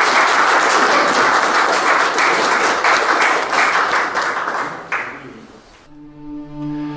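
Audience clapping their hands in a dense round of applause that dies away about five seconds in. Soft music with long held notes begins near the end.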